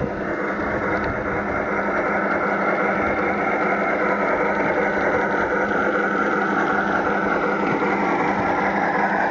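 1:32 scale Accucraft K27 battery-powered model steam locomotive running fast on garden track, its old Sierra onboard sound system playing a simulated steam sound over the running noise of the wheels. The sound system is not quite set up right. It grows louder over the first few seconds as the engine nears, then holds steady.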